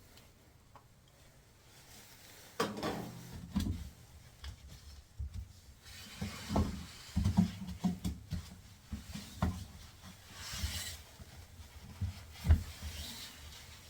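Hands working on a front-load washing machine's rubber door boot and its fittings: irregular knocks, thumps and rubbing, with a few short scrapes.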